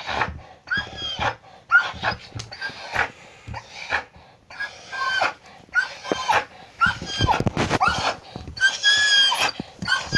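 An old Samoyed dog breathing in short, ragged gasps, roughly one a second, with squeaky pitched tones in them, the longest near the end. This is laboured breathing in an epileptic-type seizure brought on by a brain tumour.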